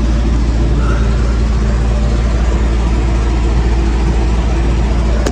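A heavy engine running steadily at idle, a deep even hum.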